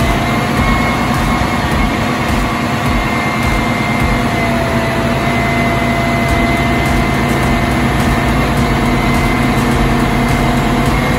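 Combination sewer jetting and vacuum truck running at work over a manhole: a steady, loud machine drone with a high whine that rises slightly at the start and then holds.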